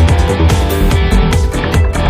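Loud background music with a driving electronic beat and a guitar.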